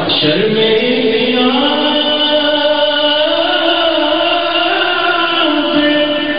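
Man's voice reciting an Urdu naat into a microphone, singing long held notes that rise and fall slowly.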